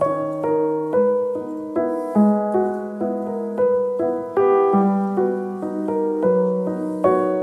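Background piano music: a melody of repeated notes over low held notes that change every second or two.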